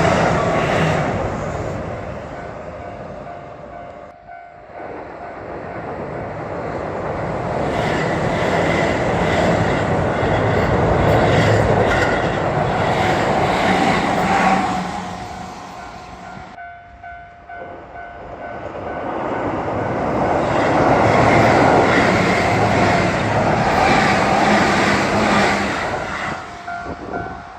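Keihan electric trains passing in succession with a loud rush and clatter of wheels on rail, easing off twice into short lulls. In the lulls, and plainly near the end, a level-crossing warning bell rings with even, repeated dings.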